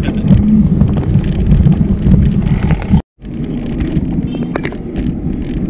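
Wind buffeting the microphone of a camera carried on a moving bicycle, with road rumble underneath. The sound drops out for a split second about three seconds in, then picks up again.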